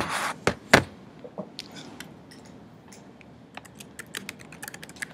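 Handling noise of the recording device: a few loud bumps and knocks in the first second as it is moved, then a quick run of light clicks from about three and a half seconds in as it is operated.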